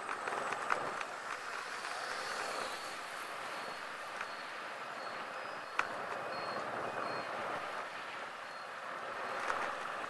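Steady road noise while riding a motorbike: a rush of wind and traffic with no speech, broken by a couple of sharp clicks and a series of faint, short high beeps through the middle.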